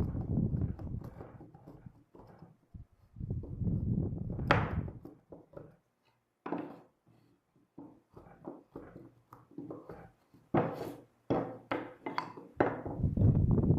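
Irregular knocks and thuds, some heavy and low, others short and sharp, with gaps between.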